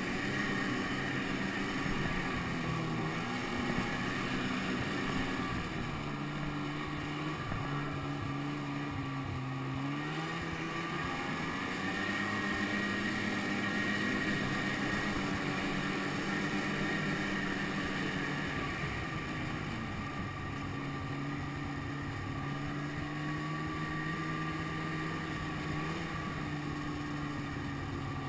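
Snowmobile engine running steadily under way, heard up close from the machine being ridden. Its pitch holds, then shifts up or down a few times as the throttle changes.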